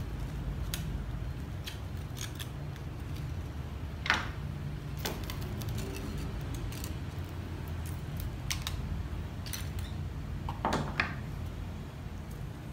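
Small pruning shears snipping several times, a series of short sharp clicks, the strongest about four seconds in and again near the end. A steady low hum runs underneath.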